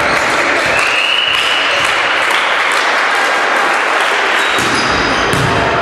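Volleyball referee's whistle sounding one steady blast of about a second and a half, authorising the serve, over a constant noisy din in the sports hall; a few sharp knocks near the end.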